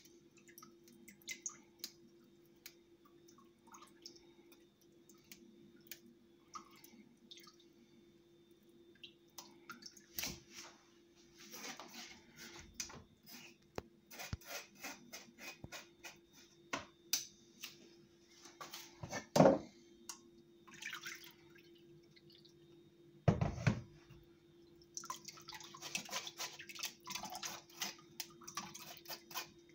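Blended kiwi, cucumber and apple juice dripping and trickling through a fine mesh sieve into a plastic bowl, with a metal spoon scraping and pressing the pulp against the mesh. Two louder knocks fall near the middle.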